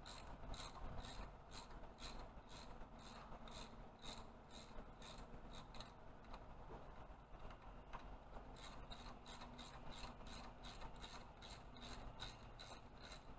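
Hand ratchet clicking as it works the camshaft bearing cap bolts, about two to three light clicks a second, with a pause of a couple of seconds a little before the middle before the clicking resumes.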